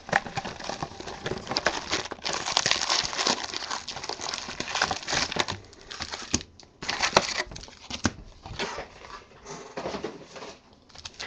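Cardboard Topps Strata hobby box being opened and its foil-wrapped card packs pulled out and set down: crinkling and rustling of foil wrappers with scraping cardboard and small knocks. The handling is busiest over the first half and thins to scattered clicks and rustles after that.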